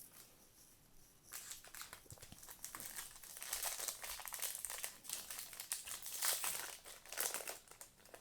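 Crinkling foil wrapper of a Topps Chrome trading-card pack being handled and opened, a dense crackle that starts about a second in.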